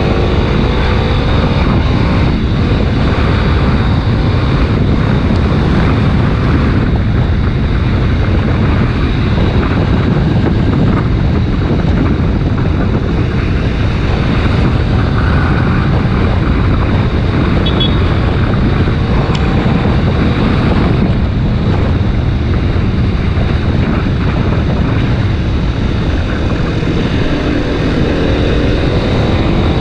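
Heavy wind noise buffeting the helmet- or bike-mounted action camera's microphone while riding a Kawasaki Ninja 250 RR Mono, with its single-cylinder engine running underneath. The engine's pitch climbs near the end as the bike revs up.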